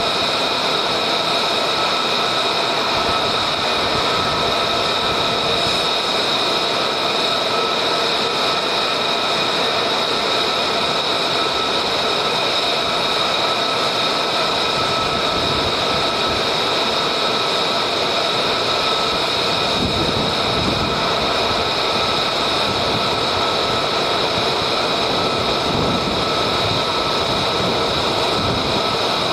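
Steady, high-pitched whine of an F-35A Lightning II's jet engine as the fighter taxis, with a deeper rumble joining about twenty seconds in.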